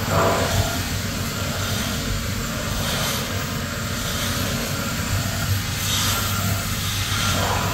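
CNC vertical machining centre (VMC) running while milling an aluminium die block under coolant: a steady hum under a hissing wash, with brief louder hisses about three and six seconds in.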